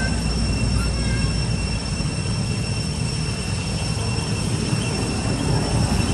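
Steady outdoor background rumble, heavy in the low end, with faint constant high-pitched tones running over it.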